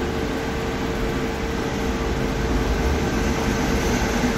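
Steady mechanical hum: an even background noise with a constant mid-pitched tone and a low rumble underneath.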